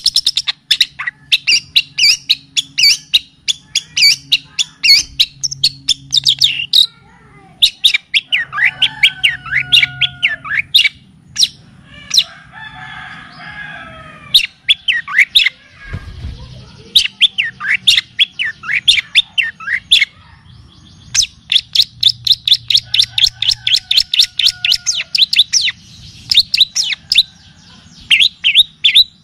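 Recorded songbird song from a masteran track of pied triller (kapas tembak) and cililin songs: fast runs of sharp high chirps, several a second, broken by short pauses and a few lower warbled phrases.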